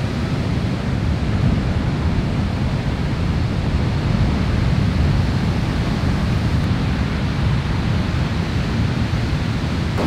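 Steady roar of heavy ocean surf breaking, with wind buffeting the microphone.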